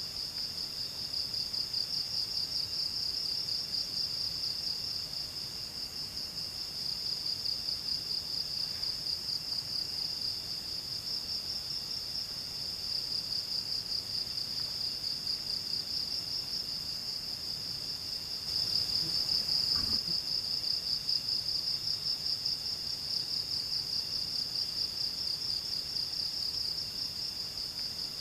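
Night insects, crickets or similar, trilling in a steady, fast-pulsing high chorus, with fainter insect tones underneath. One soft knock about two-thirds of the way through.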